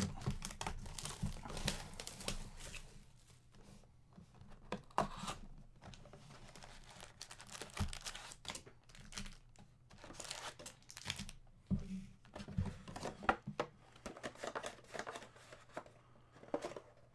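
Plastic wrap and card packs crinkling and tearing as a Panini Prizm trading-card hobby box is unwrapped and opened and its foil packs are pulled out and set down: irregular rustles and crackles with short pauses.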